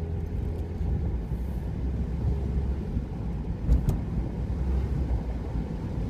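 A car being driven, heard from the driver's seat: a steady low rumble of engine and road noise, with one short knock a little past halfway.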